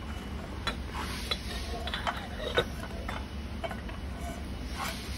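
A steady low mechanical rumble with irregular light clicks and knocks over it, the sharpest about two and a half seconds in.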